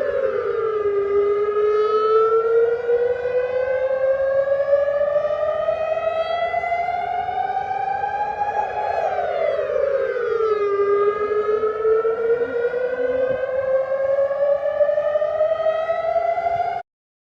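Siren wail played backwards: the pitch drops quickly, then climbs slowly for several seconds, twice over, and cuts off abruptly near the end.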